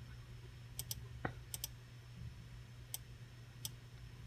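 Computer mouse clicking about six times, including two quick double clicks, over a low steady hum.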